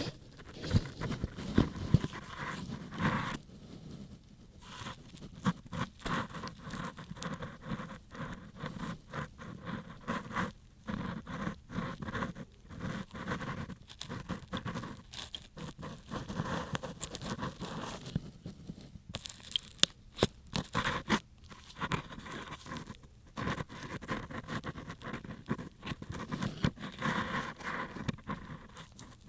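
Ear pick (mimikaki) scraping and rubbing slowly inside an ear, heard close up as irregular crackling, scratchy strokes with brief pauses, typical of ear-cleaning ASMR.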